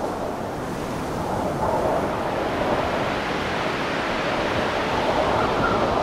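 Lagoon waves washing onto a sand beach in strong wind, the gusts buffeting the microphone with a low rumble. The wind picks up about two seconds in and stays stronger.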